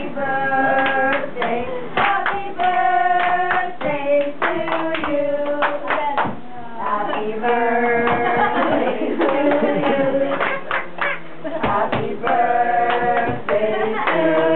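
A group of people singing a birthday song together, with hand claps keeping a steady beat.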